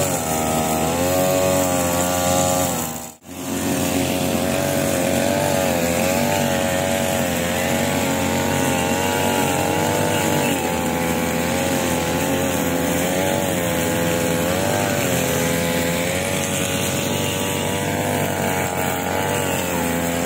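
Two-stroke backpack brush cutter engine running, its pitch rising and falling as the throttle is worked. The sound drops out briefly about three seconds in.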